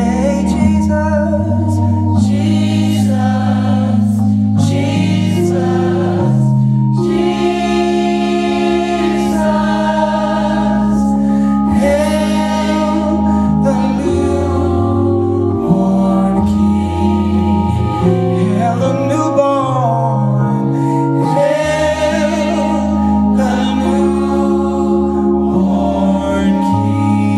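Live gospel-style Christmas music: two male lead voices singing over a choir, with organ holding sustained low chords.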